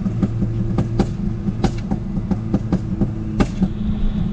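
Ford Fiesta ST's turbocharged 1.6-litre four-cylinder running at a steady pitch, heard from inside the cabin. Its exhaust pops away in a rapid, irregular string of sharp cracks, several a second, through a catless downpipe and tuned setup.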